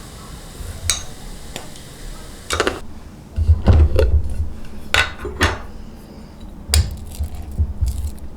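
Kitchen utensils and cookware clinking and knocking: a string of separate sharp clinks over dull thuds, as pots, dishes and cutlery are handled.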